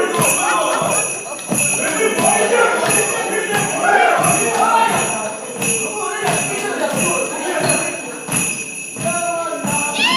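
Dance music played from a CD, with steady jingling and a rhythmic beat.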